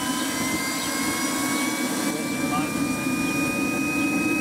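KingTech 310 model jet turbine running on the ground: a steady rushing sound with a high whine that slowly rises in pitch.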